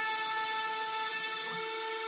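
A rotary tool used as a homemade CNC router's spindle runs at high speed with a steady whine. Its two-flute cylindrical end mill is cutting into MDF that is covered with tape.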